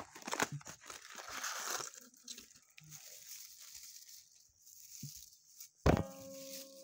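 Crinkle-cut paper shred packing filler rustling and crinkling as a hand pulls it out of a small cardboard box. One sharp knock near the end.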